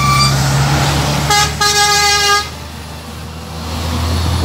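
A passing truck sounds its horn: a short toot at the start, then one steady blast of about a second, over the drone of heavy diesel truck engines.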